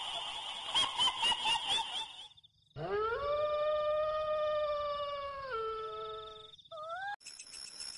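A high-pitched cackling laugh, the kuntilanak ghost-laugh horror sound effect, for about the first two seconds. After a brief gap comes one long, held, dog-like howl that steps down in pitch partway through, and a short rising howl near the end.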